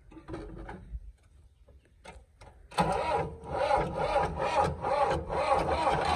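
Tractor diesel engine being cranked by its starter, beginning suddenly about three seconds in with a rhythmic pulse of about four beats a second.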